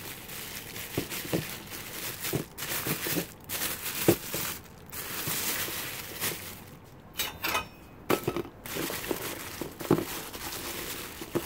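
Thin plastic bag crinkling and rustling as hands untie and open it, with scattered light knocks, the sharpest about four seconds in.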